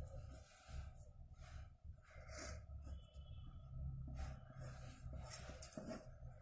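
Pencil scratching on paper in a series of short, quick strokes as lines are drawn, over a steady low hum.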